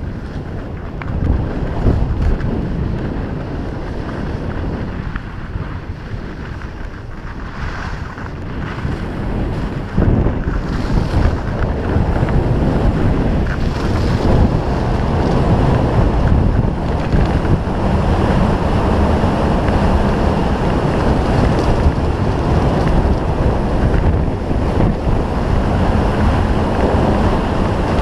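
Wind buffeting a GoPro's microphone during a downhill ski run, mixed with the steady hiss and scrape of skis on packed piste snow. It gets louder about ten seconds in and stays loud.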